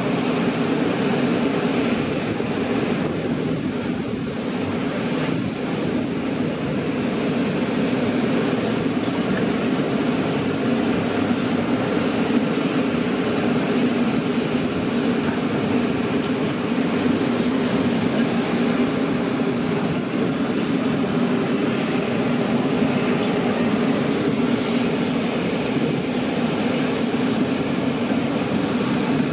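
Steady drone of aircraft engine noise, with a thin high whine above it.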